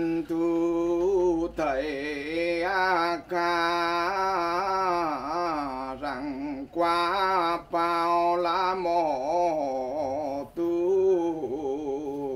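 A man's solo voice chanting a Mường 'mo' ritual text: long held, wavering notes sung in phrases broken by short pauses for breath.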